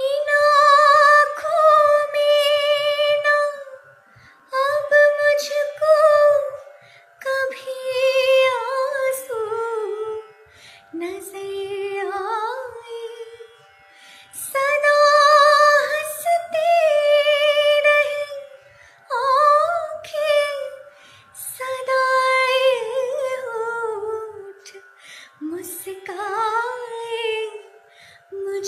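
A young woman singing a slow melody solo, in long phrases of held notes with vibrato and sliding pitch, with short breaths between phrases.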